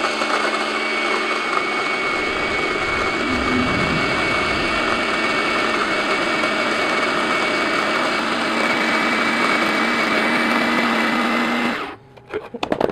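Fellow Opus electric conical burr grinder grinding a dose of coffee beans for espresso: a steady motor run with a thin high whine over the grinding noise, cutting off near the end.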